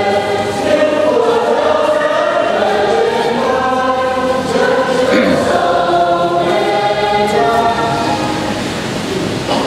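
Church choir singing a hymn in long held notes, dying away near the end.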